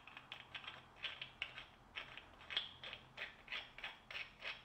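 Faint scraping of threads as the knurled end cap of a high-pressure compressor's filter housing is twisted on by hand, in short strokes about three a second.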